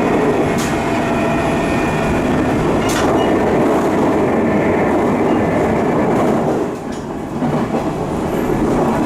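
Running noise inside a 719 series electric train car: a loud, steady rumble with a thin whine over it, two sharp clicks, and a brief dip in level about seven seconds in. It carries the car's abnormal 'jet' noise from its bogie, which the uploader puts down to worn bearing parts, most likely with play causing knocking and vibration.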